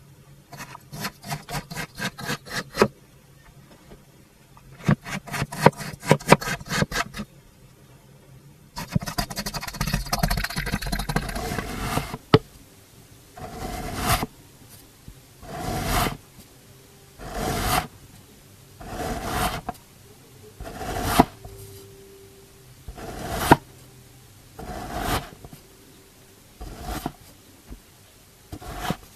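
Blade cutting through kinetic sand, a crunchy, grainy crackle. A few long crunching passes come first, then about nine separate short slices, one every second and a half to two seconds.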